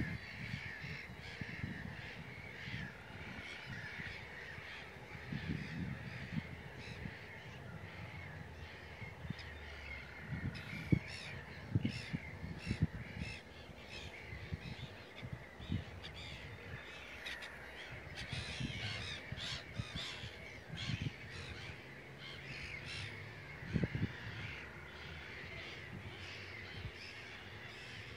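Birds calling around a pond: short calls over and over, with a few low thumps.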